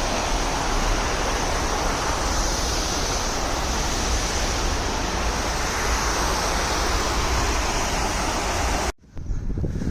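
Steady rushing splash of a fountain's falling water. It cuts off suddenly near the end.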